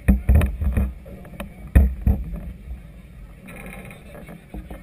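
Strong wind and choppy water buffeting a camera mounted on a floating vessel: an uneven low rumble broken by sudden knocks and thumps, easing off past halfway.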